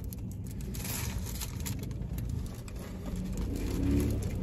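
Low steady rumble inside a car cabin, with faint rustles and small clicks from paper sandwich wrappers being handled while eating.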